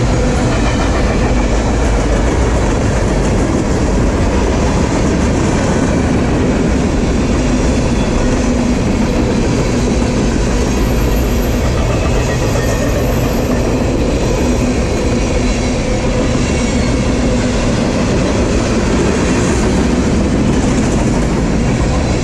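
Freight cars of a CSX manifest train rolling past close by at speed, with a steady, loud noise of steel wheels on the rails.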